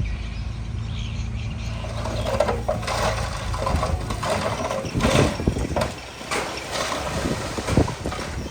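Heavy diesel earthmoving machinery running at a steady low hum, with scattered metallic clanks and rattles from about halfway through.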